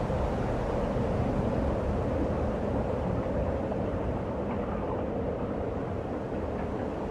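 Steady low rushing noise that keeps an even level throughout, with no clear pitched sound on top.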